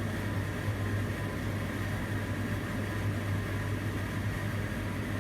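Steady machine hum inside a tower crane's operator cab, a low hum with a faint high whine above it.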